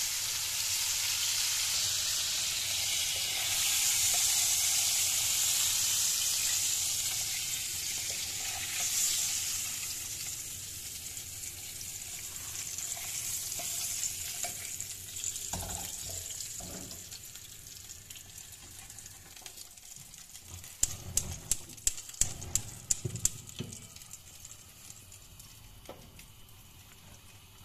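Floured calamari rings deep-frying in hot oil in a pan, a steady sizzle that fades away over the first half. Near the end comes a quick run of sharp clicks and knocks.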